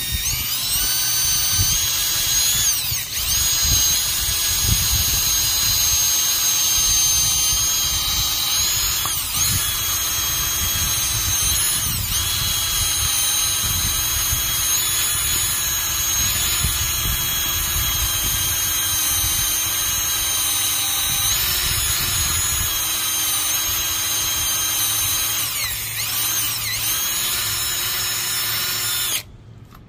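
Cordless drill spinning a wire wheel brush against the rusty flywheel of a 5 HP Briggs & Stratton engine, scrubbing the rust off. It makes a steady high whine that dips briefly a few times as the brush bears on the metal, and it stops abruptly near the end.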